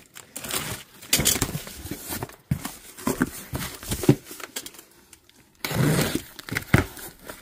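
Cardboard shipping box being handled and opened: flaps scraping, rustling and knocking in irregular bursts, and packing tape slit with a box cutter, with a short lull a little past halfway.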